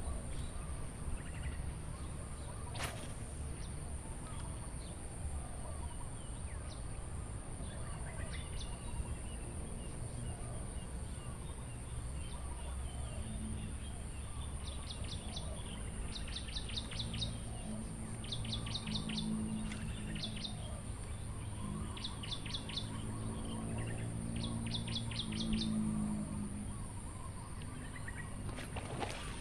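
Outdoor ambience with a bird giving short, rapid trills again and again from about eight seconds in, over a low droning hum that swells in the second half.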